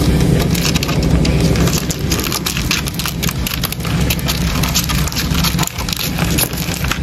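Dense crackling and scratching of stag beetles' clawed feet and mandibles scrabbling on a bark-covered log as they grapple, heard close up, over a steady low rumble.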